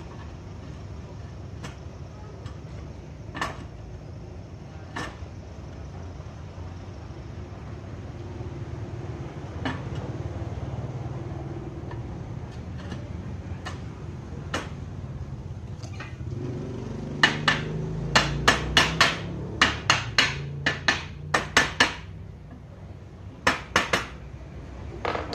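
Light, quick hammer taps on a wooden window sash: a few single taps at first, then a rapid run of about a dozen taps a little past the middle, and two or three more near the end.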